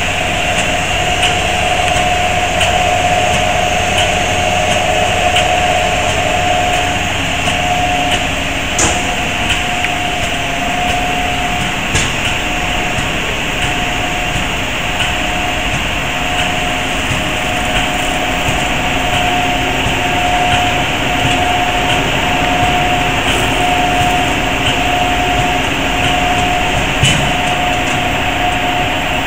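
PCB assembly machinery running, with a board conveyor moving circuit boards: a steady mechanical drone with a mid-pitched whine that pulses on and off about once a second. A few sharp clicks cut through it.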